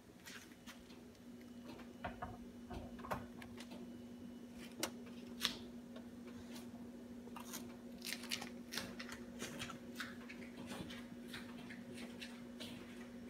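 Pizza baking in a home oven: irregular sharp ticks and crackles over a steady low hum, the clicks coming thickest in the middle stretch.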